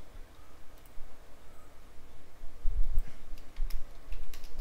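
Scattered clicks of a computer mouse and keyboard, a handful spread over the seconds, over a low rumble.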